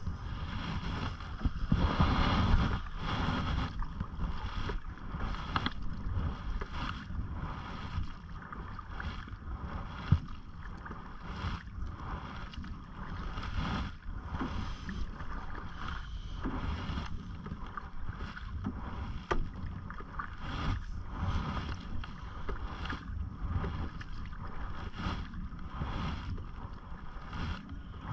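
Canoe paddle strokes splashing and dripping through the water, with water lapping at the hull and wind rumbling on the microphone. A single sharp knock about ten seconds in.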